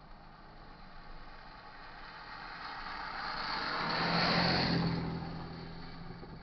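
A car passing close by on the road: tyre and engine noise swells to a peak about four seconds in, then fades as it drives away, leaving a low steady hum.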